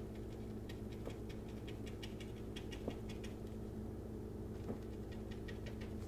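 Fan brush loaded with acrylic paint tapping against a canvas: a run of quick, light taps several a second, a short pause about halfway, then more taps. A steady low hum runs underneath.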